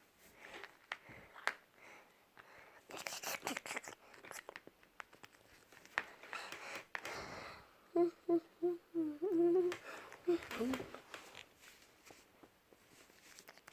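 A person humming a short tune in quick separate notes, ending on a longer held note, with scattered clicks and brief rustling noises around it.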